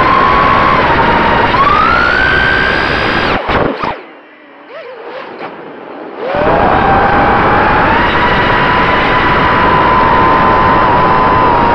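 FPV quadcopter's electric motors and propellers, heard through the onboard camera: a loud buzzing whine that climbs in pitch, drops away about three and a half seconds in, stays low for about two seconds, then spools back up and holds steady.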